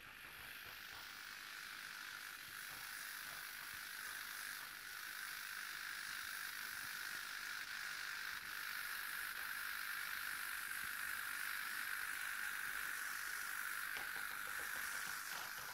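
Rivarossi H0 'sogliola' model locomotive's small electric motor running along the track with a steady whine, growing gradually louder as it comes closer.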